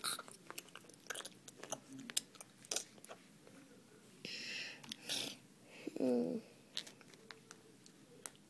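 Plastic toy animal figures clicking and tapping as they are pushed together, with mouth-made chewing and breathy eating noises acting out the toy wolves feeding. A short voiced sound about six seconds in is the loudest moment.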